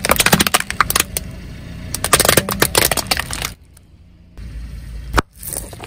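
A car tyre crushing a plastic toy jeep on asphalt: a dense run of plastic cracks and snaps for about three and a half seconds. After a short lull comes a low rumble, then one sharp crack and a few clicks near the end.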